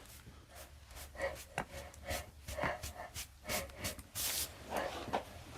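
Faint rubbing and rustling of hands on clothing, with scattered light clicks and knocks and a couple of short breath sounds.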